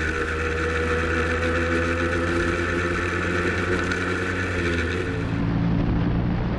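Motorcycle engine running steadily at an even speed. About five seconds in it gives way abruptly to another motorcycle engine heard from on board while riding, duller and without the hiss.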